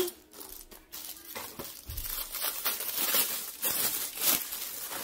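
Plastic clothing packaging crinkling and rustling unevenly as it is handled and opened.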